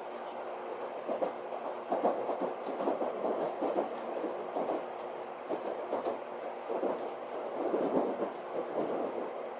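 Running noise inside a Tokaido Shinkansen car: a steady hum with irregular rumbling and clattering from the wheels on the track, swelling and easing every second or so.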